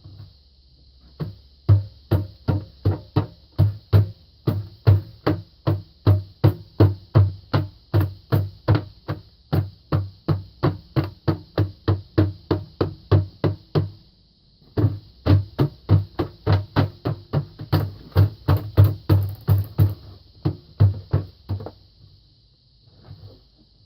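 Repeated heavy blows, about two or three a second with a short pause midway, as the tire-and-duct form is beaten to work it loose from the cast refractory furnace lining.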